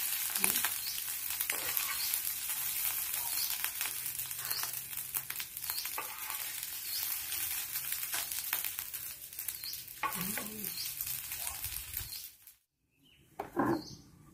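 Egg fried rice sizzling in a frying pan on a portable stove, with a wooden spatula scraping and scooping it; the frying cuts off suddenly near the end, followed by a brief pitched sound.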